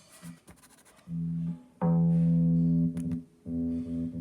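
Sustained electric guitar chord through a Line 6 Helix, switched off dead and back on by an optical MIDI kill switch. After about a second of near quiet with a few clicks, the chord comes in, is cut off abruptly twice and returns each time.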